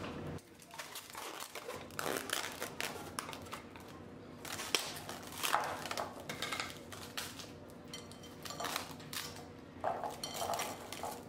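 Plastic cling wrap being pulled off and stretched over a glass mixing bowl, then pressed down around the rim: a run of irregular rustles and crinkles with light clinks against the glass.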